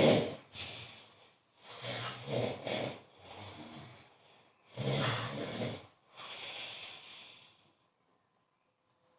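A man snoring very loudly: the tail of one snore, then two more loud snores, each followed by a softer, quieter breath, before the sound stops near the end.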